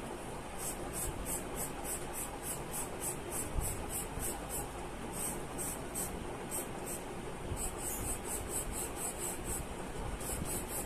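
Charcoal pencil scratching on paper in quick, short repeated strokes, about three to four a second with a couple of brief pauses, as hair is drawn in.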